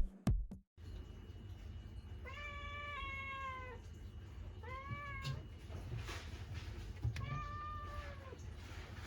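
Domestic cat meowing three times: a long drawn-out meow, a short one, then another longer one, over a steady low hum.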